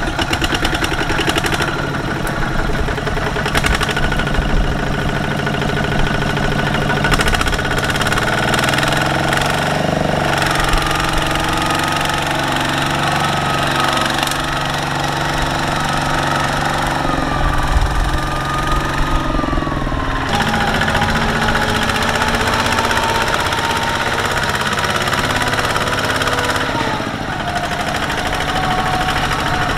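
A two-wheel power tiller's single-cylinder diesel engine chugging under load as it hauls a laden trailer through mud. Its pitch drops slowly now and then as the engine labours.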